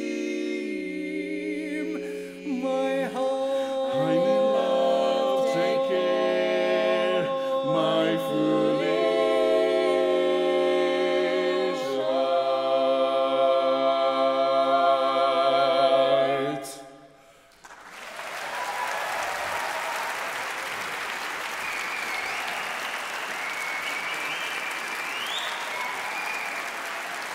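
Mixed barbershop quartet singing a cappella in close harmony, ending on a long held chord that stops about sixteen seconds in. After a brief pause the audience applauds.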